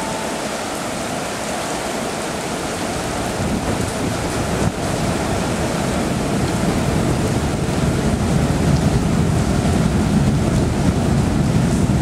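Steady rushing noise of typhoon rain and wind. A low rumble builds from about halfway through.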